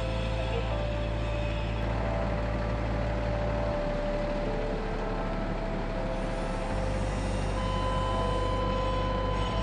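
Idling engines of emergency vehicles: a steady low rumble with a few faint, steady whining tones above it.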